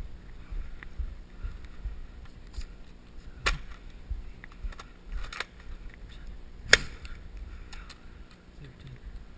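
A few sharp snaps of Nerf blasters firing, one about a third of the way in and the loudest about two-thirds in, with fainter snaps between.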